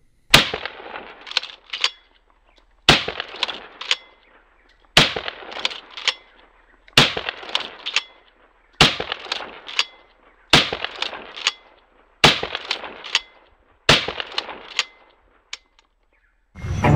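A 12-gauge Uzkon AS14 pump-action shotgun is fired eight times, about one shot every two seconds, emptying its 7+1 magazine. Each report rings out briefly and is followed by a couple of quick clacks as the forend is pumped to chamber the next shell.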